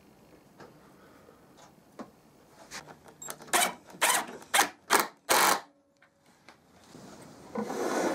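Power drill driving a screw up through the jig into a wooden handle, in about five short, loud bursts a few seconds in. A softer rubbing follows near the end.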